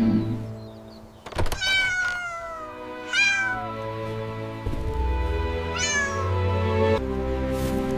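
A cat meowing three times, each call gliding down in pitch, over steady background music. There is a sharp knock just before the first meow.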